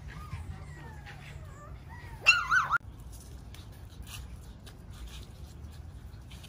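Miniature Schnauzer puppy whimpering softly, then giving one loud, wavering, high-pitched whine about two seconds in, followed by faint scratching and rustling.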